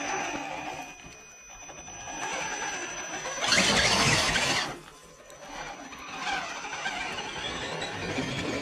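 Electric RC scale crawler truck (Vaterra Ascender with a brushless crawler motor) climbing over roots, its motor whining thinly at first, then a loud burst of wheelspin throwing dirt about three and a half seconds in, before the tyres grip and the truck keeps crawling.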